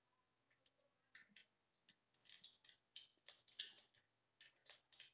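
Mustard seeds popping in hot cooking oil in a pan: a few sharp pops at first, becoming quicker and louder from about two seconds in as the seeds splutter.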